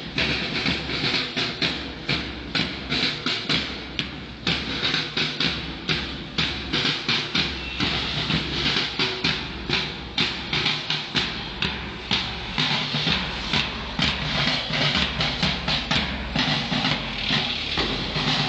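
Marching drums beating a steady march rhythm, about four strokes a second.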